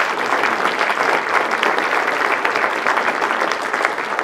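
Audience applauding steadily, a dense patter of many hands clapping at the end of a speech.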